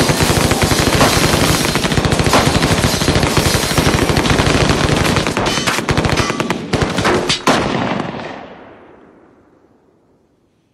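Sustained automatic gunfire: a dense, unbroken stream of rapid shots that stops about seven and a half seconds in, then dies away over about two seconds.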